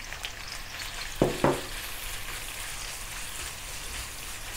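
Sliced onions frying in ghee in a wok over low-medium heat: a steady sizzle while a wooden spatula stirs them, with two louder strokes of the spatula against the pan about a second in.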